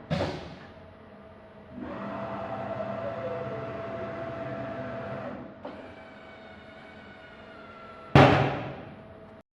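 CNC milling machine's automatic tool changer carrying out a tool change: a clunk, a motor whine with a falling tone for about four seconds, a lower hum, then a loud clunk near the end.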